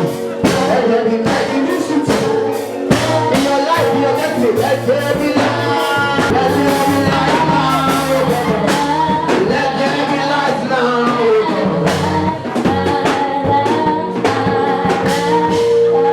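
Gospel worship music: singing over a band with drums.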